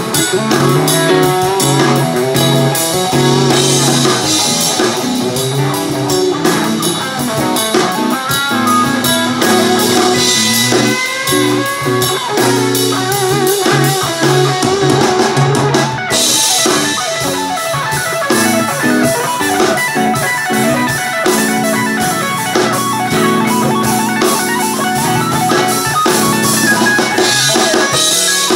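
Electric guitar riffing and soloing through an amp in a loose improvised style, with wavering, bending notes about halfway through.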